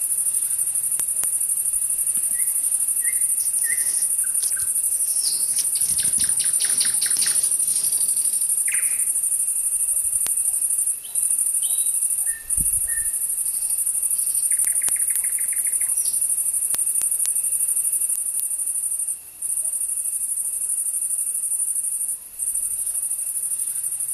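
A continuous high-pitched insect trill, broken by a few brief pauses, with songbirds calling over it in short chirps and quick trills.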